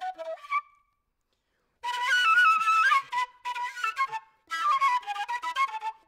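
Background music: a flute playing a stepping melody, which drops out for about a second near the start and then resumes.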